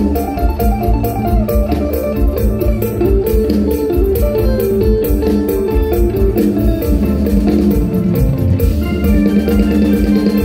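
Live mor lam band playing a dance passage without singing: a quick plucked-string melody over a heavy, steady bass and drum beat.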